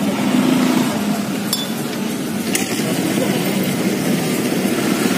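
Metal spoon clinking twice against a bowl while scooping dessert, about one and a half and two and a half seconds in, over a steady hum of street traffic.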